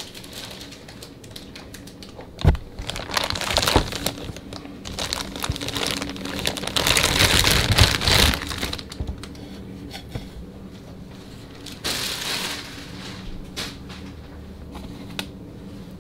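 A clear plastic bag crinkling and rustling as a toy is pulled out of it, loudest about halfway through. There is a sharp knock a couple of seconds in and another about twelve seconds in.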